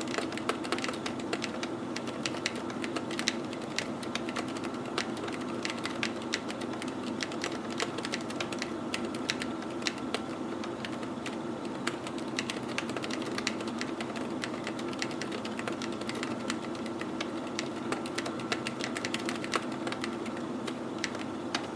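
Typing on a KBDFans HHKB Tofu mechanical keyboard with Aliaz 60g silent switches and PBT Cherry-profile keycaps: a continuous, irregular stream of muted keystrokes. Under it runs a steady hum of computer noise.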